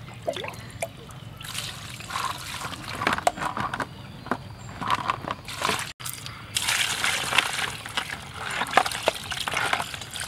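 Water poured from a plastic scoop over live horseshoe crabs in a plastic basin, splashing and trickling, with short knocks as the wet shells are handled.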